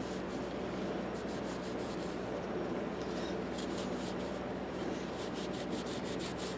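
A cloth rag rubbing and wiping a screwdriver handle: faint, irregular scratchy strokes over a steady low hum.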